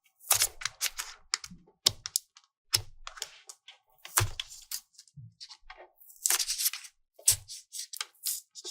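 Plastic toy pieces and packaging being handled: irregular clicks, taps and crinkling, with a few soft thuds.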